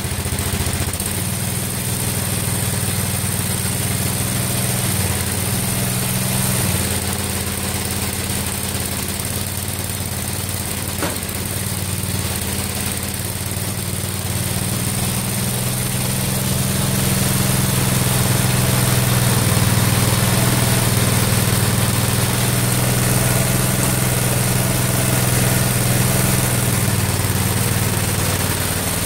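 Small garden tractor engine running steadily, its note shifting a few times and getting a little louder for a stretch in the second half.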